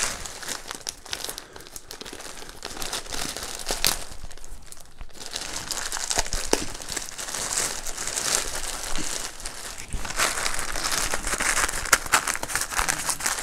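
A plastic mailer bag crinkling as it is handled and torn open by hand, with a short lull about four seconds in and busier crinkling and tearing near the end.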